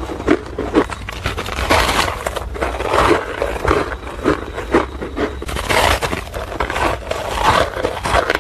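Close-up crunching of packed, powdery ice, bitten off a handheld clump and chewed: a quick, uneven run of crunches.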